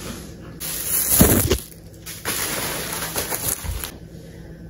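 Large cardboard shipping box being handled and moved, with rustling and scraping cardboard in two noisy stretches, the first the louder, and dull thumps as it is set down.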